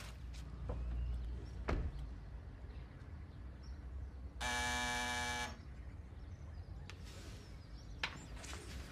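An electric door buzzer sounds once, a steady buzz of about a second, about halfway through, someone at the front door. Before it there is quiet room sound with a light knock about two seconds in.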